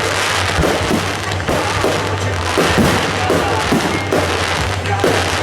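Fireworks going off in quick succession: a dense, continuous crackling with many pops, over a steady low hum.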